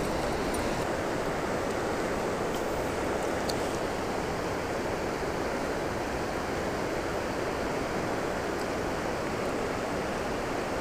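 Steady rushing of a flowing creek, an even, unbroken wash of water noise.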